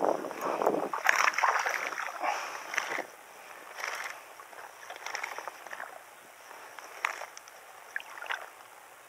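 Hooked bass splashing and thrashing at the water's surface as it is fought in, loudest over the first three seconds, then a few shorter, fainter splashes.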